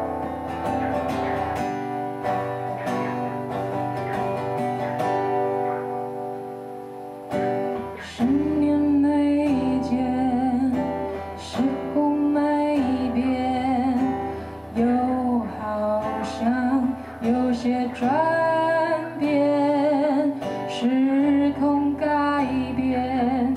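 A woman singing a slow ballad to her own acoustic guitar. The guitar plays alone for about the first eight seconds, then her voice comes in over the strumming.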